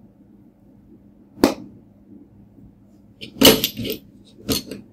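Sharp clicks and knocks of a small glass glitter vial being capped and handled: a single click about a second and a half in, a louder cluster of knocks around three and a half seconds, and another click near the end.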